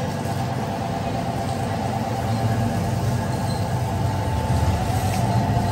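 Terrazzo (chip) floor grinding machine running steadily: a motor hum with a steady whine as its stones grind the floor, getting a little louder about two seconds in.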